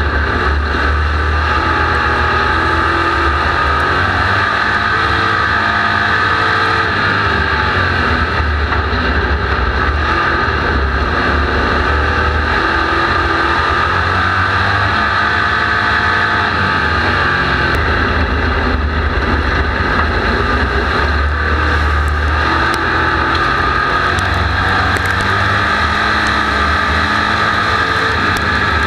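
Street stock race car's engine running hard at race speed, heard from inside the car, its pitch rising and falling gently as the driver works the throttle through the turns. Loud and steady, with scattered rattles and clicks in the second half.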